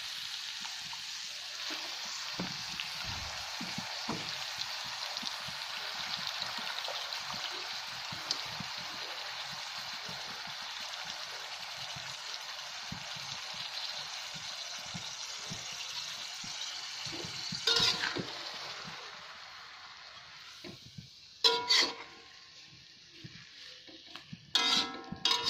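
Oil sizzling steadily in a wok with fried batagor pieces and fresh spinach, the sizzle dying down in the last third. Then a few loud clanks and scrapes of a metal spatula against the wok as the spinach is stirred in.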